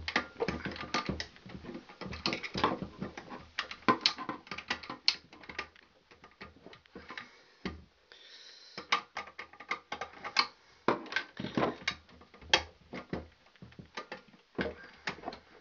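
Irregular small clicks, taps and scrapes of a wire and metal terminal parts being worked by hand into a pull-out disconnect's neutral terminal, with a short scrape a little past the middle.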